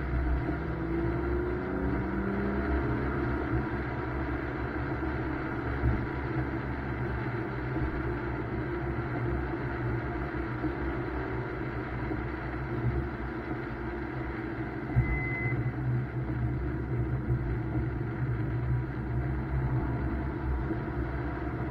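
BMW M2's turbocharged straight-six engine running under way on a wet track, a steady low drone with road noise, its pitch shifting in the first few seconds. A short high beep sounds about fifteen seconds in.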